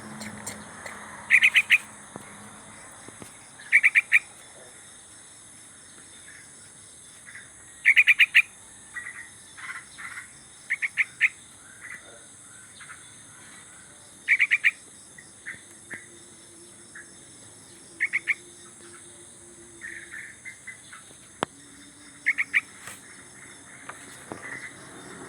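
A bird calling in loud, quick clusters of three or four sharp notes every three to four seconds, with softer single notes in between, over a steady high-pitched background drone.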